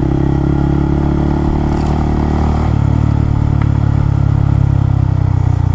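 Honda Monkey 125 single-cylinder four-stroke engine, fitted with an aftermarket engine kit and muffler, running steadily under way. Its note dips slightly about halfway through.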